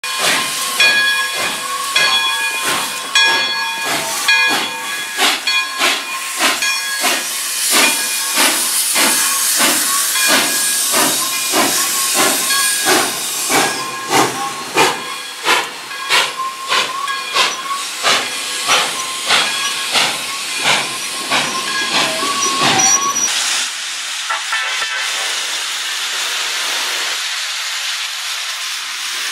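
Pere Marquette 1225, a 2-8-4 Berkshire steam locomotive, working away from a standstill: a steady rhythm of exhaust chuffs about one and a half a second, with the steam whistle sounding over them for stretches. About 23 seconds in it gives way to the steady rushing rumble of a diesel freight train rolling past.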